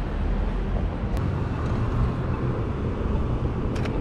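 Street ambience: a steady low rumble of traffic, with brief sharp clicks about a second in and near the end.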